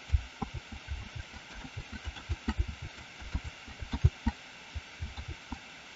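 Irregular soft taps and thumps of a computer keyboard and mouse being clicked, with Ctrl+Z pressed repeatedly.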